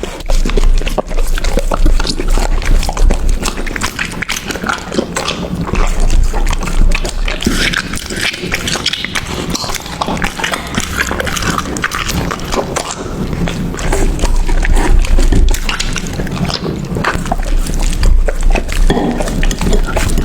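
A dog chewing and munching food up close: a dense run of wet, crackling bites and mouth clicks that goes on without a break.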